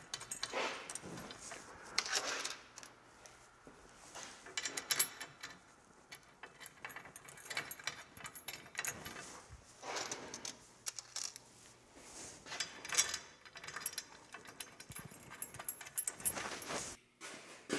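Small metal hardware clinking and rattling at an irregular pace as bolts, fender washers, flat washers and nuts are handled and started by hand, fastening tines to a dethatcher tine bar.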